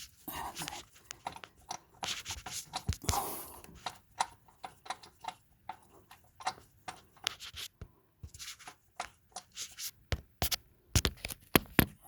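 Socket wrench and metal parts clicking and clinking in irregular sharp clicks, with a few short scraping rustles near the start and about three seconds in, while a knock sensor is being removed from the engine.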